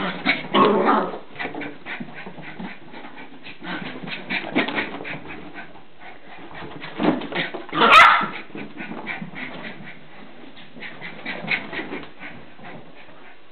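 Border terrier puppy giving excited dog noises in short bursts during a mad turn, a frantic bout of play. A sharp knock comes about eight seconds in.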